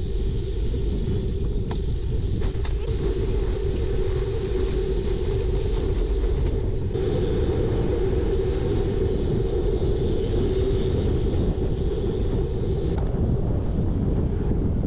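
Steady low wind rumble on the microphone of a camera riding on a folding bike, mixed with tyre noise on asphalt as the bike rolls along the road.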